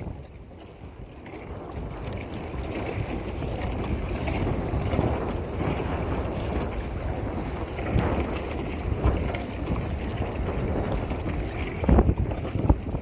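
Wind buffeting the phone's microphone over water sloshing around a kayak, building up over the first couple of seconds and then holding steady, with a few thumps near the end.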